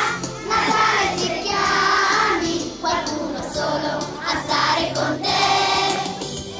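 Large children's choir singing a Christmas song together, in held sung phrases with short breaks between them.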